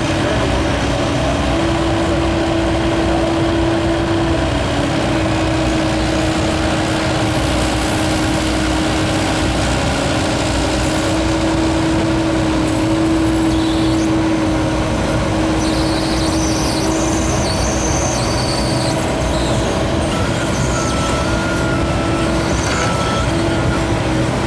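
CAT 308E2 excavator's diesel engine running under load with a steady hydraulic whine that steps slightly up and down in pitch as the tiltrotator and grapple move. Brief high squeaks come in about two-thirds of the way through.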